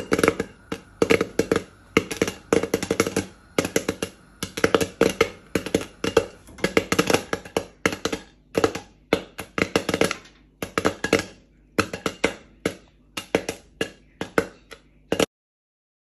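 Popcorn kernels popping in a lidded saucepan: rapid, overlapping pops at first that thin to scattered single pops as the batch nears done. The sound cuts off suddenly near the end.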